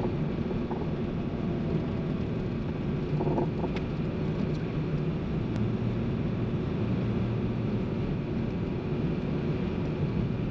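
Suzuki Carry kei truck driving: a steady engine and road rumble.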